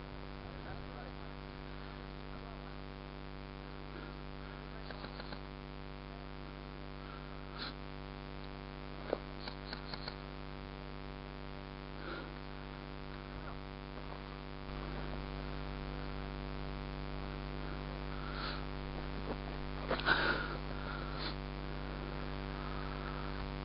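Steady electrical hum with many evenly spaced overtones, a little louder after about fifteen seconds. A few faint scattered clicks, and a short scuffle about twenty seconds in.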